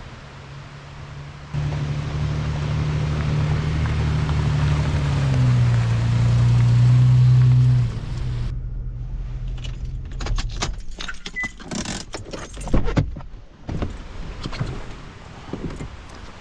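Toyota FJ Cruiser's 4.0-litre V6 running while the truck is manoeuvred, its pitch shifting a little, then going quiet about halfway through. Afterwards comes a burst of jangling keys and rattling clicks, then a few scattered knocks.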